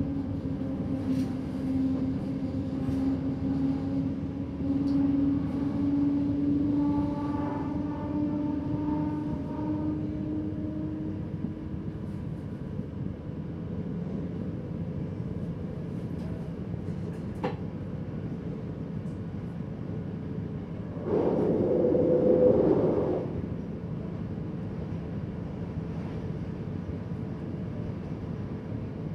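Electric train running along the track, heard from inside the driver's cab: a steady motor whine that rises slightly in pitch over the first ten seconds or so, over a continuous running rumble. About twenty-one seconds in, a louder rush of noise lasts about two seconds.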